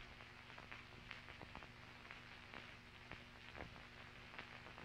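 Near silence: a faint steady hum with scattered soft clicks and crackles, the background noise of an old film soundtrack.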